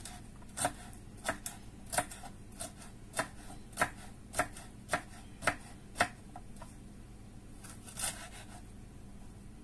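Kitchen knife dicing pineapple on a wooden cutting board: sharp knocks of the blade on the board about every half second, pausing about six seconds in, then one more stroke near the end.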